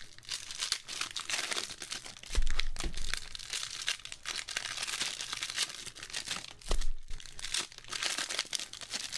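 Foil trading-card pack wrappers crinkling and tearing as packs are opened and handled, with two dull thumps about two seconds in and near seven seconds.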